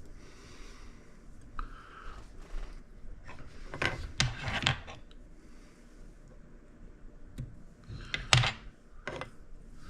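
Hands working at a jig-tying bench, handling thread and small tools: soft rubbing with a cluster of sharp clicks about four seconds in and another loud click about eight seconds in.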